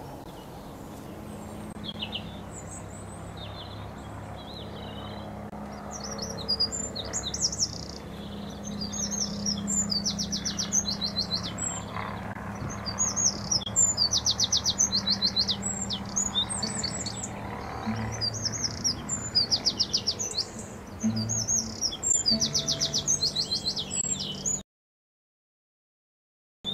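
Dawn chorus: several songbirds singing, with fast repeated trills, over a steady background hiss and low rumble of distant motorway traffic. The sound cuts out to silence about two seconds before the end.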